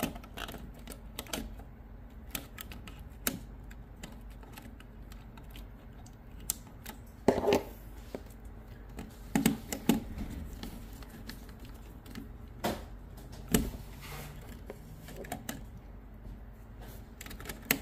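Irregular sharp clicks and knocks of objects being handled, a dozen or so, with the loudest about seven and ten seconds in, over a steady low hum.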